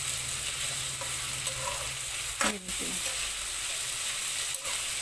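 Diced potatoes, peas and onions sizzling in hot mustard oil in a metal kadhai, stirred and scraped with a metal spatula. The sizzle is a steady hiss, with a sharp click of the spatula near the end.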